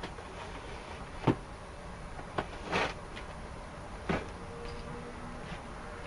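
A taped cardboard parcel being handled: a few sharp knocks against the cardboard, the loudest about a second in, and a short scraping rustle near the middle.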